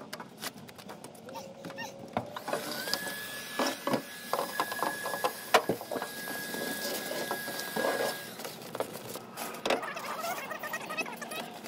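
A handheld power tool runs with a steady high whine for about five seconds, starting a few seconds in. Around it come crackles and knocks of foam insulation being torn up and handled on a bare metal van floor.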